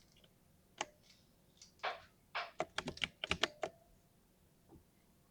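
Mechanical keyboard with lubed linear switches being typed on: a couple of single keystrokes, then a quick burst of about a dozen keys near the middle, and one last soft press.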